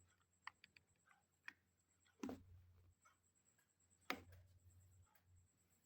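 Faint plastic clicks and taps as a switch puller grips a mechanical keyboard switch and works at it in its hot-swap socket, with two louder clicks about two and four seconds in.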